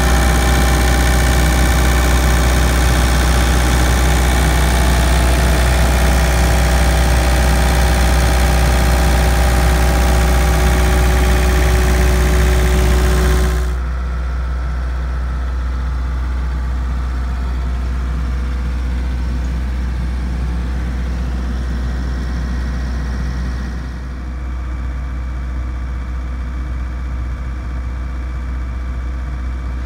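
MQ Power WhisperWatt 25 diesel generator with its Isuzu 2.2 L diesel running at a steady speed, a constant low hum with steady engine tones. About 14 seconds in it turns quieter and duller, and it drops a little again about 24 seconds in.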